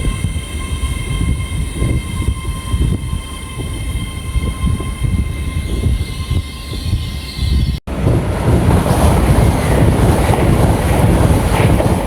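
Trains at a station platform: a low rumble with a steady whine, then, after a sudden cut about eight seconds in, the louder rushing noise of a train moving past.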